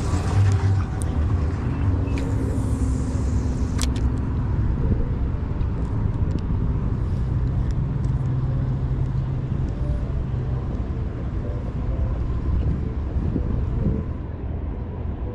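Steady low rumble of motor vehicle traffic, with an engine hum that comes and goes and a sharp click about four seconds in.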